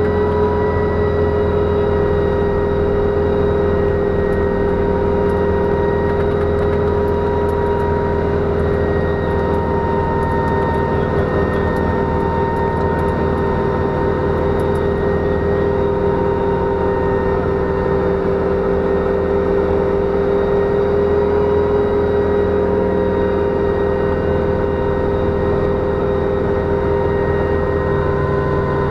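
Kamov Ka-26 helicopter in flight, heard from inside the cockpit. Its two Vedeneyev M14V-26 nine-cylinder radial engines run at a steady working power over a low drone, with the steady siren-like whine of the engines' iron cooling fans on top.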